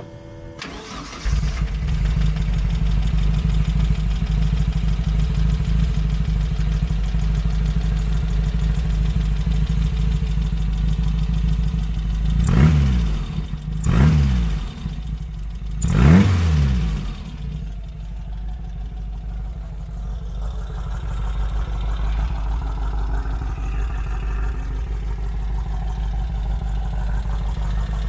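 The sand rail's 1,848 cc stroker VW air-cooled flat-four, on Weber carburetors and Cherry Bomb exhaust, catches about a second in and settles into a steady idle. About halfway it is revved in three quick blips, each rising and falling, then drops back to idle.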